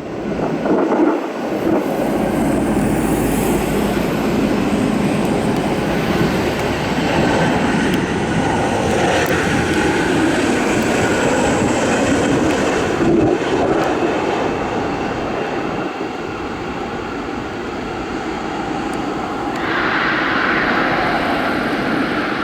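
Boeing 737-600's CFM56-7B jet engines running loudly and steadily, a broad roar that takes on a brighter, higher edge near the end.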